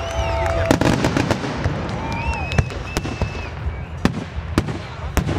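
Fireworks finale: aerial shells bursting in quick succession, many sharp bangs over a dense low rumble. A few brief pitched tones sound in the first half.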